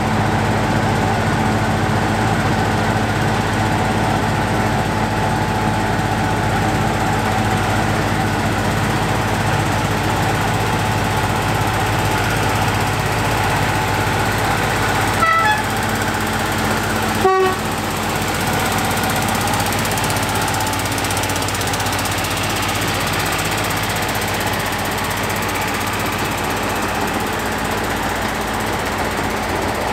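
Narrow-gauge diesel locomotive's engine running steadily as it hauls a passenger train past, with two short horn toots about halfway through. In the second half the rumble and clatter of the coaches on the track join in.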